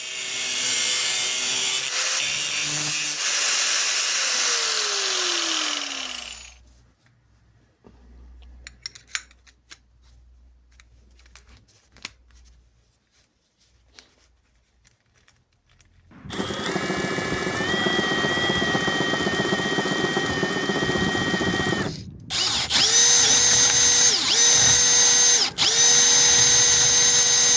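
Angle drill running a thread-restoration tool in a timing roller bolt hole: it runs for about six seconds and winds down with a falling whine, then after a quiet stretch of light clicks and knocks it runs steadily again, stops briefly, and is pulsed on and off a few times.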